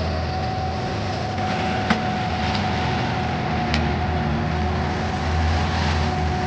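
Vermeer mini skid steer running steadily, a low engine rumble with a constant high whine over it. There are two sharp clicks, about two seconds in and again near four seconds.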